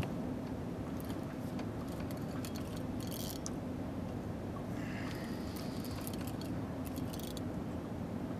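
Fishing reel turning with faint scattered clicks and light metallic rattles as a hooked flathead catfish is played, over a steady low hum.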